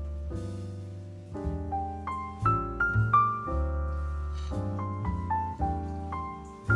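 Background piano music: a melody of single notes over held bass notes.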